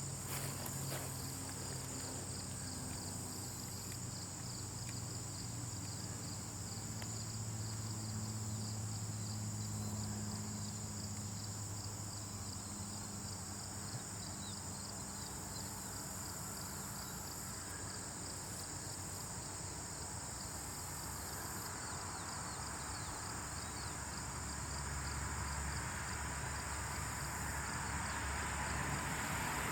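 Insects chirring steadily in a high, dense band, with a low hum underneath and a soft hiss that swells near the end.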